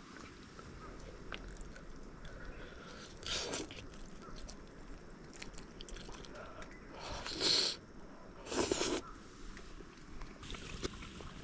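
A person eating: three short crunchy bites or chews, about three seconds in, seven and a half seconds in and nearly nine seconds in, with small clicks between them.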